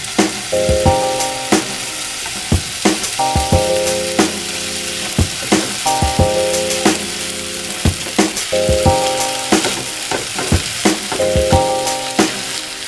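Raw bacon strips sizzling in a hot nonstick frying pan as more strips are laid in. Background music with a repeating chord pattern and a steady beat plays over it.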